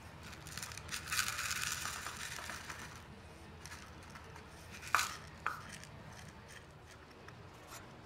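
Small azurite stones rattling and scraping as they are tipped from a plastic tub onto a wooden board and pushed around with a gloved fingertip. A sharp tap comes about five seconds in, with a lighter one just after.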